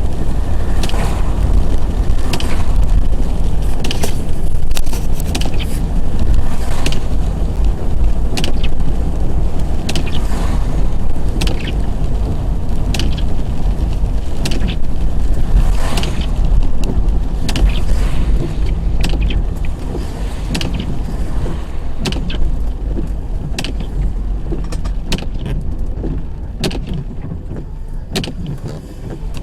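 Car interior noise: a steady low rumble from the road and engine, with scattered clicks and knocks, easing off slightly near the end.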